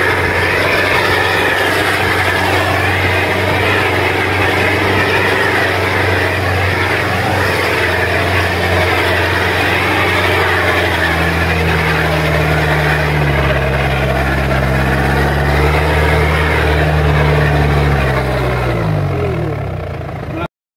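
Engine of an open off-road jeep running as it drives over a rough dirt track, with a steady rumble of engine and road noise. The engine note changes about halfway through and drops near the end, then the sound cuts off abruptly.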